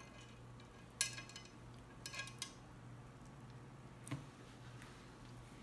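Quiet eating sounds as roasted red snapper is picked apart by hand over a serving bowl: a few sharp clicks and clinks, the loudest about a second in, a small cluster around two seconds and another near four seconds, over a low steady hum.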